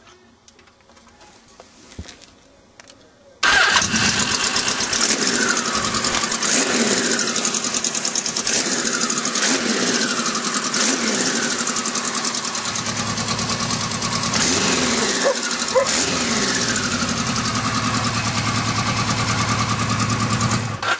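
Kawasaki Z1000 LTD's air-cooled four-cylinder engine running, heard loud and close at the exhaust, where the exhaust box is making most of the noise. It comes in suddenly a few seconds in, with a downward sweep in pitch repeating about once a second, and cuts off abruptly near the end. Before it, only faint clicks.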